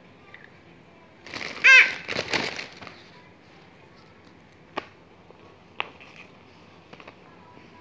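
A brief high-pitched squeal with a short burst of crackling, then a few sharp, separate clicks of plastic toy pieces being handled.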